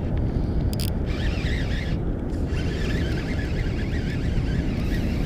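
Steady low rumbling noise of wind buffeting the microphone, with faint wavering higher sounds over it.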